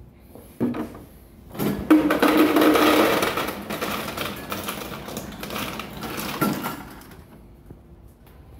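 Ice machine dispensing ice: a motor hum with cubes clattering out, starting about two seconds in and running about five seconds, loudest at the start.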